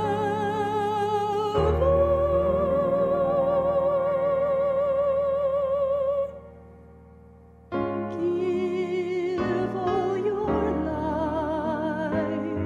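A woman singing a gospel song in a sustained, operatic style with strong vibrato over piano accompaniment, holding one long note. The music drops away briefly about six seconds in, then resumes.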